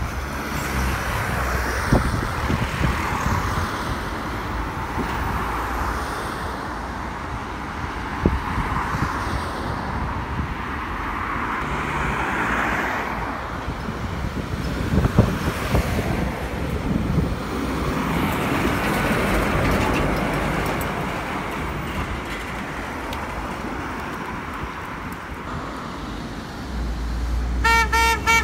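Lorries and vans driving round a roundabout: engines and tyre noise rising and falling as each goes by. Near the end a lorry's engine draws close and a horn sounds a quick run of short toots.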